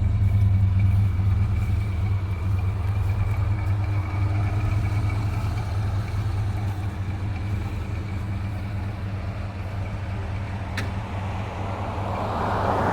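Car engine idling with a steady low rumble. A short sharp click comes about eleven seconds in, and a rush of noise swells near the end.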